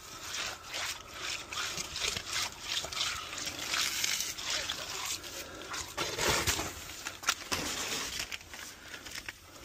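Gloved hand pressing, patting and smoothing wet concrete, a run of irregular wet scraping and slapping strokes.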